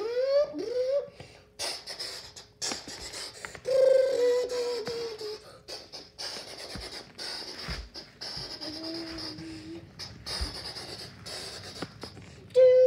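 A child making toy-jet noises with the mouth: breathy whooshing and hissing, with a short falling hummed engine tone about four seconds in and a lower one around nine seconds.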